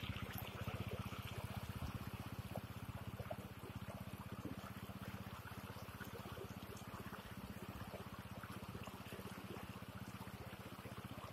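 Floodwater flowing fast over a road and through fields: a steady rushing of water with a low, pulsing rumble underneath.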